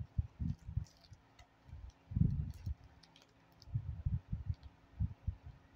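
Irregular soft knocks and light clicks of plastic dolls being handled on a tabletop.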